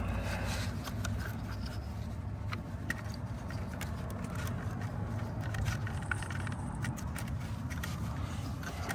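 Irregular clicks and scraping of hands working an ignition coil and its connector loose on a Toyota 2UZ-FE V8, over a steady low background rumble.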